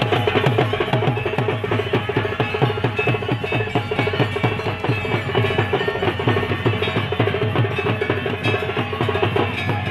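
Fast, steady drumming by a group of drums, with dense strokes in a driving rhythm.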